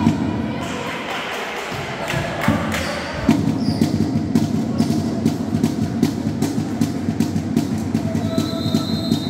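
Drums beating a fast, steady rhythm of low thumps, starting about three seconds in.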